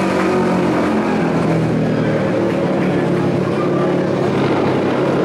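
Vintage dirt-track racing motorcycle engines running, several at once, their overlapping tones holding a fairly steady pitch.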